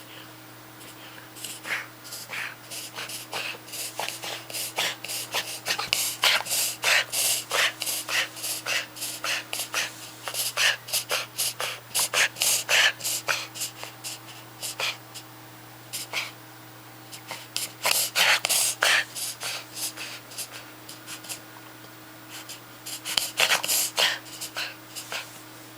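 Small puppy in a paroxysmal fit of rapid, repeated noisy breaths, about four a second, coming in several bouts with short pauses between them. This is the kind of episode the owner is unsure is a reverse sneeze or something else, in a puppy that has been coughing for over a month.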